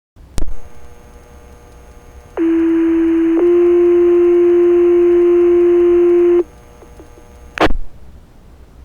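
Two-tone sequential fire pager alert over a fire department radio channel: a low steady tone for about a second, then a slightly higher tone held for about three seconds, over a low radio hiss. A short radio click comes near the start, and a squelch burst about a second after the tones end. These are the tones that set off the firefighters' pagers before the dispatch is read.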